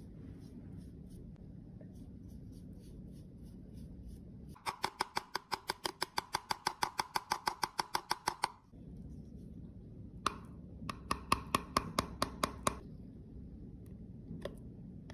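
A makeup brush sweeps softly over a plastic eyeshadow compact. Then come rapid sharp taps on the compact, about five a second for four seconds, knocking loose powder out. After a short pause there is a second, shorter run of taps.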